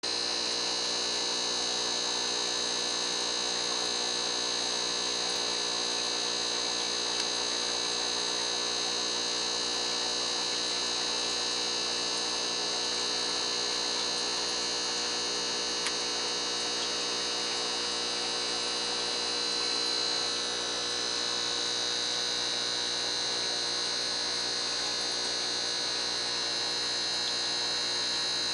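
Steady electrical hum with a high whine over it, unchanging except for a brief dip about twenty seconds in.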